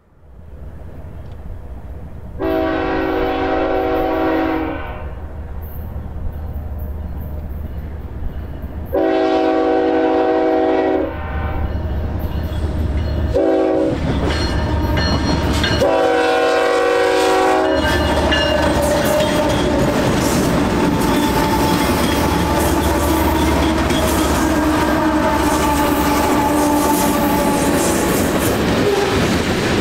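BNSF freight train's diesel locomotives sounding a multi-note air horn in the long, long, short, long pattern, the standard signal for a grade crossing, over the low rumble of the engines. After the last blast the locomotives and freight cars roll past close by, wheels clacking steadily on the rails.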